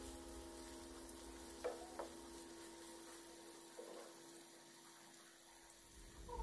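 Marinated chicken pieces frying in oil in a nonstick pan, a faint steady sizzle. A wooden spatula knocks and scrapes softly against the pan a few times, around two seconds in and again near four seconds.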